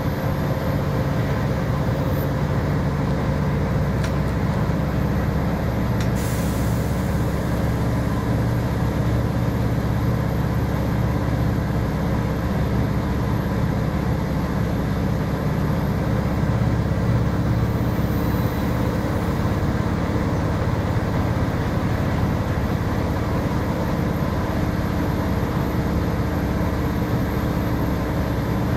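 Volvo B7R coach's six-cylinder diesel engine running steadily with road noise, heard from inside the passenger cabin while underway. A light click comes about six seconds in.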